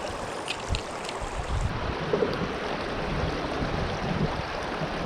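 Creek water running steadily, with wind buffeting the microphone in low gusts. A few light clicks in the first second.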